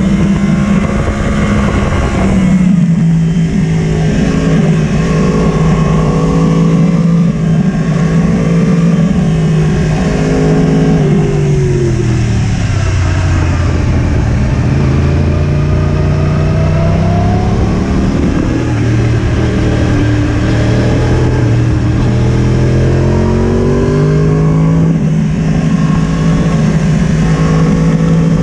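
Yamaha sport motorcycle's engine running hard at steady high revs, heard from on board. About halfway through the revs drop as the bike slows, then climb back up as it accelerates again.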